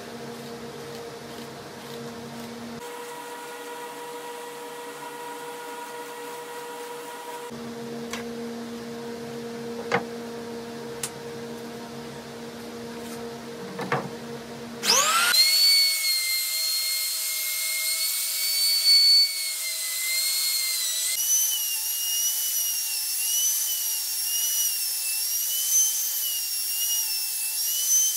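A steady low hum with a few sharp clicks, then about fifteen seconds in a router spins up with a quickly rising whine. It runs at high speed, much louder, its high whine wavering in pitch in the second half as the flattening bit cuts across the end grain of a cutting board.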